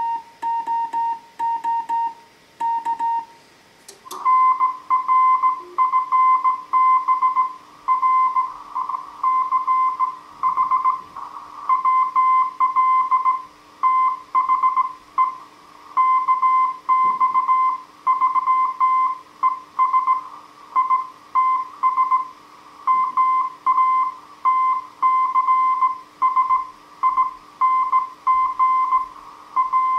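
Slow-speed Morse code from a Heathkit HW-101 transceiver: a tone near 1 kHz keyed on and off in dots and dashes. For the first few seconds the tone is slightly lower, with faint clicks. After a sharp click about four seconds in, it continues a little higher in pitch and louder, with a steady low hum beneath it.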